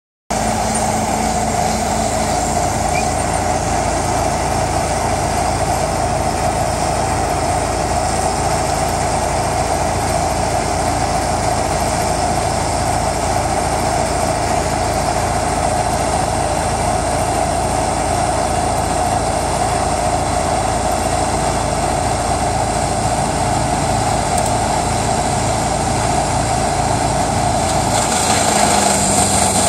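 Bandit whole tree chipper's engine running steadily. Near the end its note drops and a louder rushing noise comes in as it starts chewing wood.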